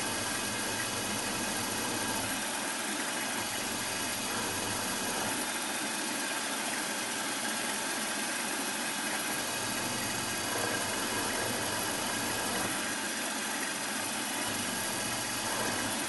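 Milling machine spindle running steadily with a tapping drill fed into a metal block, a steady motor whine over the noise of the drilling.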